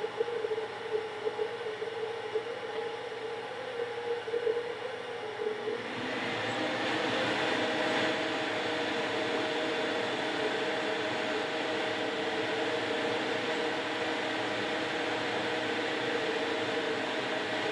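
Benchtop bandsaw running with a steady hum. About six seconds in, the blade starts cutting an aluminum spar cap, and a louder, even cutting noise comes in and holds.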